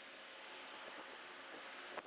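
Faint steady background hiss with no distinct source, and a short sharp tick near the end.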